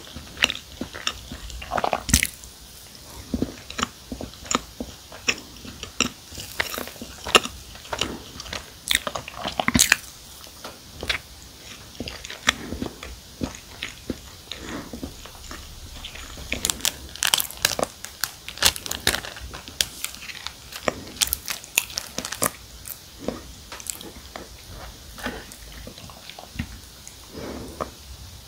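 Chewing and biting into soft, thick s'more cookies topped with toasted marshmallow, with many short crisp crunches, busiest a little past the middle.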